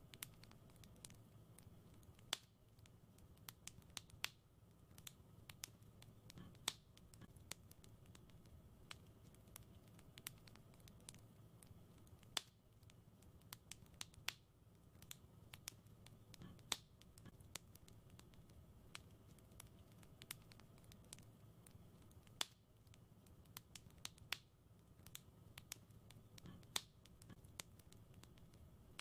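Fireplace fire crackling: sparse, irregular sharp pops and snaps over a faint, steady low rumble.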